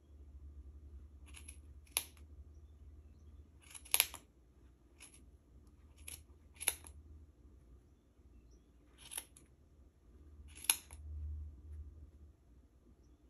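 Scissors snipping through wrapped yarn loops on a cardboard pom-pom template: about eight separate sharp cuts at uneven intervals, over a low steady hum.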